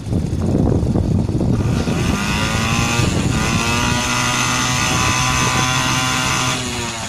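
HDX T2.5 two-stroke outboard motor running on a moped carburettor. It runs unevenly at low speed, then revs up about a second and a half in and holds a steady higher pitch, with a brief dip around three seconds. It throttles back near the end.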